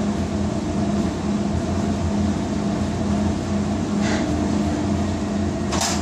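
Commercial washer-extractors running in a laundry room: a steady low mechanical hum that pulses slightly. Two brief hisses are heard, one about four seconds in and one near the end.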